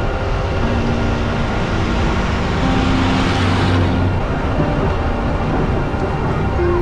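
Steady engine and road noise of a vehicle driving, heard from on board. A hiss swells about three seconds in and drops off abruptly under a second later.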